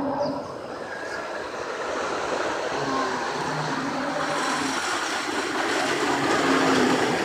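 The Grizzly wooden roller coaster's train running along its track, a steady rumble that grows louder toward the end.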